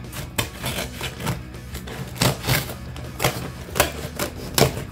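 Scissors cutting through a corrugated cardboard shipping box: about nine sharp, irregularly spaced snips and crunches.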